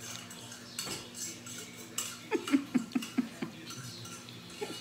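Plates and cutlery clinking at a meal table, with scattered light clicks. About two and a half seconds in comes a quick run of six or so short, low pitched sounds.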